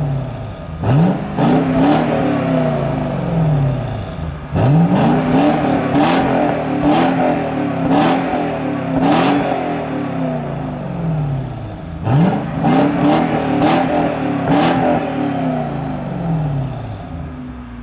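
Lexus LX570's 5.7-litre V8 revving through a modified exhaust system. It is revved hard in three bursts, about a second in, a third of the way through and two-thirds through. Each time the pitch climbs sharply, is held for a few seconds, then falls back, settling toward idle near the end.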